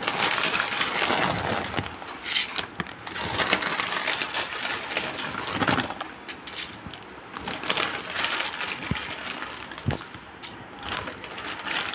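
Water boiling in a metal wok on a gas burner with pasta in it: an uneven crackling, bubbling noise with scattered sharp pops.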